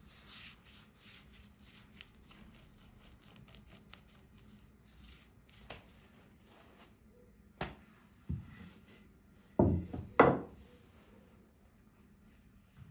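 Silicone pastry brush stroking melted fat over a thin sheet of dough on a wooden board: a run of soft, quick brushing sounds. After about seven and a half seconds come a few sharp knocks, the loudest two close together about ten seconds in.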